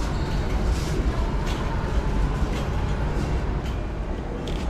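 Steady low rumble of room noise, with a few faint light clicks near the end.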